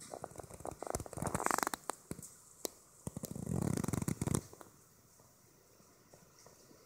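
Crackling and rustling of dry pine needles and forest litter in irregular bursts for about four and a half seconds, then only faint background.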